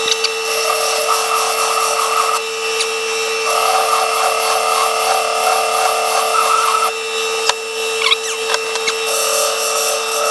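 Belt sander with a finishing belt running against the cast iron anvil, a steady whine with a grinding noise that swells and eases as the belt is pressed on and lifted off, and a few sharp clicks near the end.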